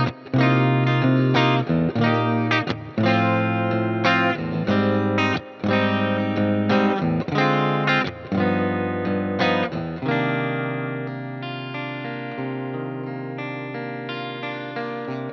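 Fender Player Telecaster electric guitar playing a quick run of notes and chords over a backing track, with a light overdrive. About ten seconds in it strikes a final chord that rings on and slowly fades.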